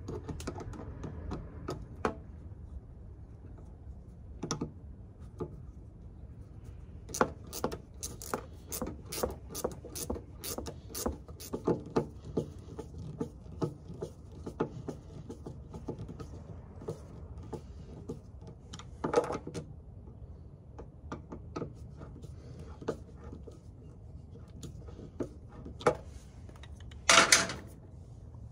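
A nut being tightened onto a bolt by hand with a combination wrench while a screwdriver holds the bolt head: a run of small metal clicks, about two or three a second, then scattered clicks, with a louder scrape or rustle near the end.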